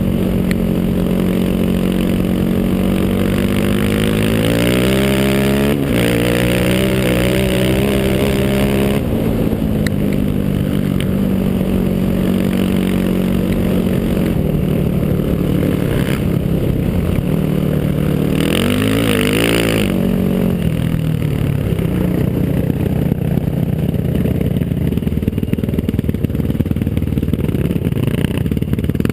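Single-cylinder four-stroke sport quad engine running under way, mostly at a steady speed, with the pitch climbing as it accelerates a few seconds in and a brief rev up and back down about two-thirds of the way through.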